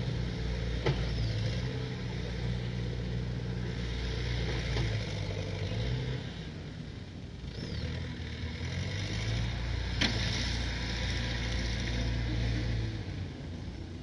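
Diesel engines of backhoe loaders running at work, with a steady drone that eases off briefly about seven seconds in and again near the end. Two sharp knocks sound, one about a second in and one about ten seconds in, and a bird chirps faintly a few times.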